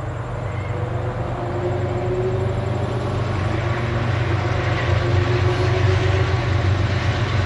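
Diesel-electric freight locomotives approaching, their engine drone growing steadily louder.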